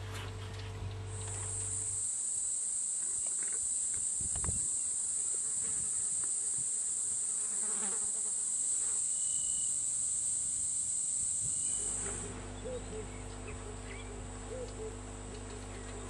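Steady, high-pitched drone of insects in the bush. It starts about a second in and cuts off suddenly about twelve seconds in.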